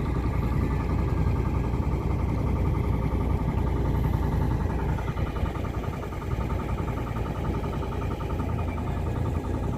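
A motor vehicle's engine running with a steady low rumble, heard while riding. From about halfway in, a fast, even rattle rides over the rumble.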